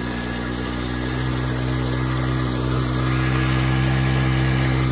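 Honda CD 70 motorcycle's small single-cylinder four-stroke engine running steadily under load, driving a belt-driven water pump; the engine note holds one pitch and grows slightly louder.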